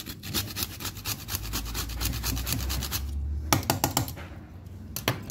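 A whole nutmeg being grated on a flat metal hand grater: quick, even rasping strokes, about five a second, that stop about three seconds in. A few sharp knocks follow.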